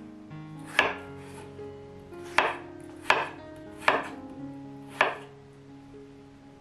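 A chef's knife cutting through raw potato and striking a wooden cutting board: five sharp knocks, uneven in spacing, over soft background music.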